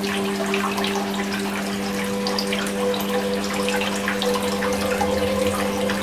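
Water trickling and splashing steadily down a small rock waterfall in a miniature aquarium diorama, with a steady low hum underneath.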